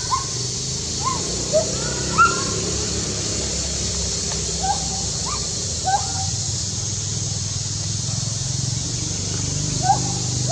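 Monkey crying: short, high squeaky calls that rise and fall in pitch, repeated irregularly about ten times over a steady hiss.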